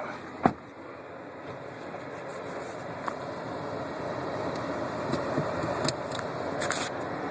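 A car's steady rushing noise that grows gradually louder, with a sharp click about half a second in.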